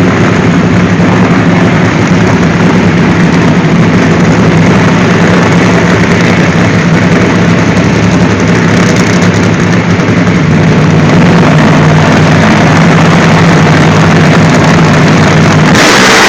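Nitro Funny Car engines running at the starting line, a steady, very loud rumble that overloads the recording. About a second before the end the sound turns louder and harsher.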